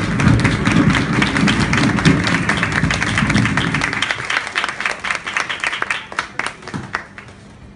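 Audience applauding over guitar music. The music stops about halfway through, and the clapping thins out and dies away near the end.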